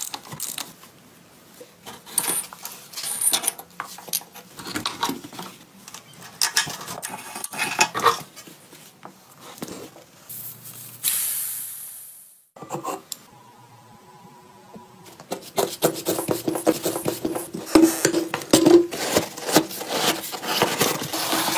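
Workshop sounds of a motorcycle wheel being stripped: metal tools clicking and clanking, with a socket ratchet working on the hub, then a hiss of air about halfway through that dies away over a couple of seconds as the tyre goes down. Near the end, rubber and metal rub and click over a steady hum as the inner tube is worked out of the rim.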